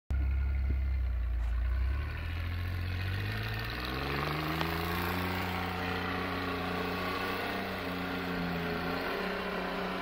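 1998 Ford Ranger 4x4 pickup's engine under load in deep snow: a low rumble, then the engine revs up over about three seconds and holds high revs as the truck pushes through with its wheels spinning.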